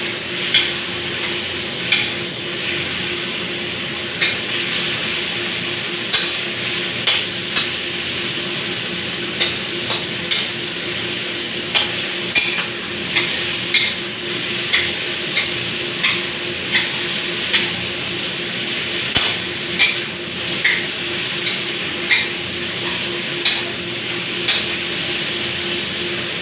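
Food sizzling in hot oil in a pan, stir-fried with a spatula that clicks and scrapes against the pan at uneven intervals, roughly once a second. A steady low hum runs underneath.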